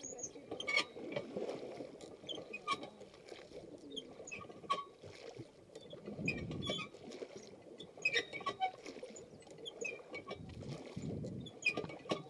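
Paddles stroking and splashing through calm river water beside an inflatable raft, with scattered light knocks and clicks.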